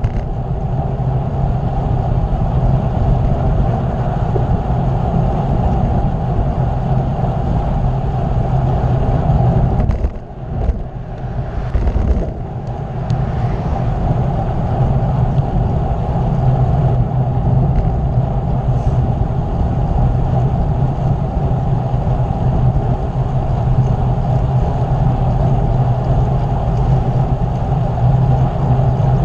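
Steady wind rush on the microphone of a moving bicycle during a road ride, with a brief drop in level about ten seconds in.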